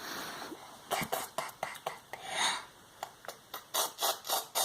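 Plastic Stickle Bricks clicking and scraping as they are handled: a string of short, sharp clicks, quicker near the end, with a brief hiss about halfway through.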